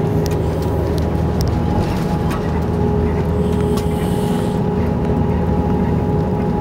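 Steady engine drone of a city bus heard from inside the cabin, a constant low rumble with a steady hum held on two notes.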